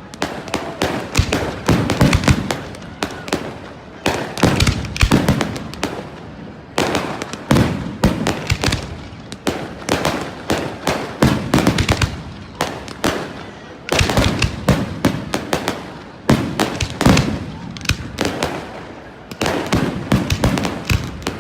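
Fireworks display going off in a dense, continuous barrage of sharp bangs and crackling, in clusters every second or two.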